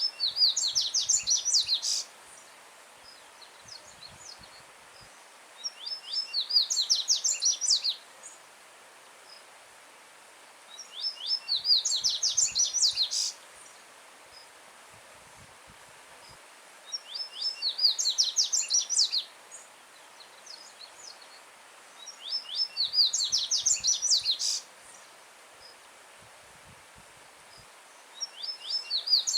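A yellow-bellied seedeater (coleiro baiano) singing loud, fast phrases of quickly repeated high notes, each about two seconds long, repeated roughly every five and a half seconds. A stream running over stones makes a steady soft rush underneath.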